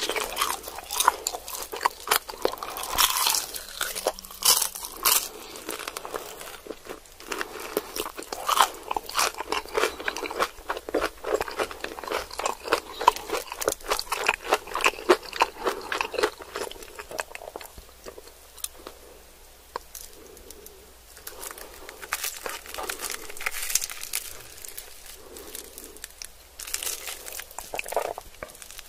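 Crispy fried chicken wings being bitten and chewed, a dense run of crisp crunches and crackles that thins out about two-thirds of the way through, then picks up again.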